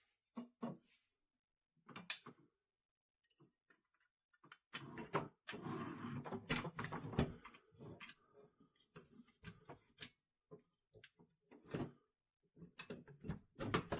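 Parts of an airsoft rifle being handled during reassembly: scattered light clicks and knocks, with a stretch of rubbing and scraping a few seconds in as pieces are moved against each other.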